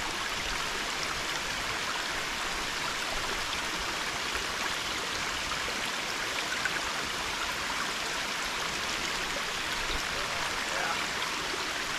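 Steady rush of running water from a stream, with a few faint short chirps over it.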